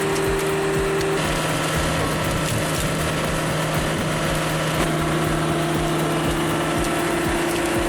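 An engine-driven wood-processing machine running steadily, its engine hum held at a constant pitch under a dense mechanical noise of the wood being worked.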